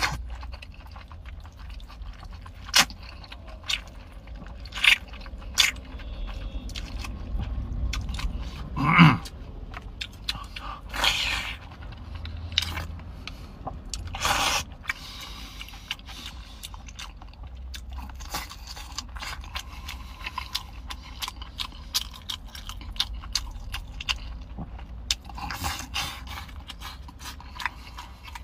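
Noodles being slurped and chewed from a metal pot of spicy broth, with several louder slurps and scattered small clicks and scrapes of chopsticks, over a steady low hum.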